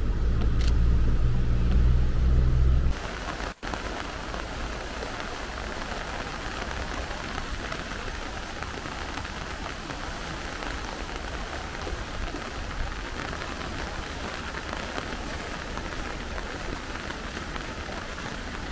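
Low rumble of a car driving, heard inside its cabin. At about three seconds it cuts to the steady rushing hiss of a swollen, muddy stream in flood after heavy rain.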